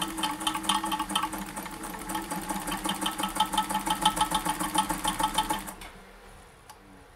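Vintage all-metal Kenmore 148.1215 sewing machine running under its electric motor, stitching through two layers of cotton: a steady motor hum with rapid, even needle ticking. It stops about six seconds in.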